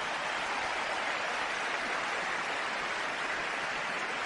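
A crowd applauding: steady, dense clapping.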